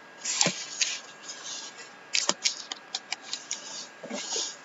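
Cardboard box being handled and turned over: short scraping rustles and a run of small clicks and taps, with two sharper knocks, about half a second and about two seconds in.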